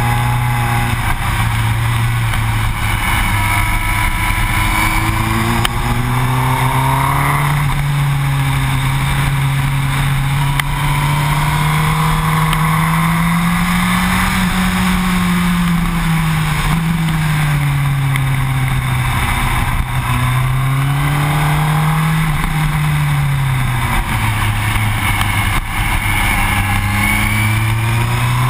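Yamaha R1 motorcycle's inline-four engine running hard on track, its note rising and falling as the bike accelerates and slows, with a couple of abrupt steps in pitch. A steady rush of wind noise runs underneath.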